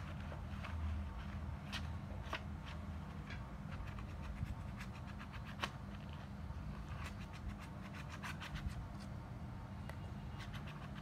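A kitten's claws and paws scratching and rustling on glittery metallic fabric and cardboard, in scattered short scratches with a denser run about two-thirds of the way in, over a steady low hum.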